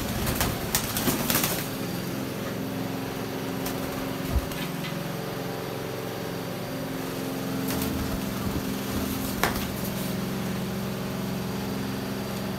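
Pigeon wings flapping in a rapid flurry for about the first second and a half as a bird flies up among the loft perches. After that a steady low hum continues, with a couple of single clicks.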